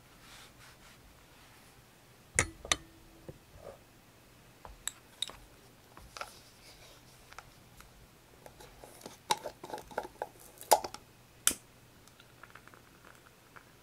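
Tableware being handled: light clinks and taps of dishes, glass and cutlery. Two sharp knocks come about two and a half seconds in, the first with a brief ringing note. A busier run of clinks follows near the end.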